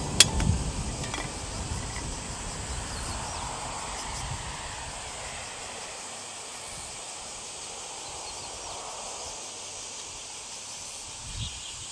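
Steady outdoor background noise with insects chirping, and one sharp click just after the start.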